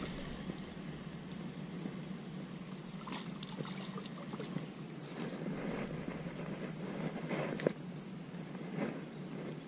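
A steady high-pitched insect chorus, under faint splashing and handling as a small largemouth bass is reeled to the bank on a spinning rod and lifted out by hand.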